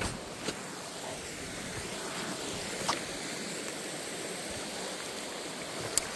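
Shallow creek water running steadily over a rock slab, with a few light clicks, about half a second in, near three seconds and near the end.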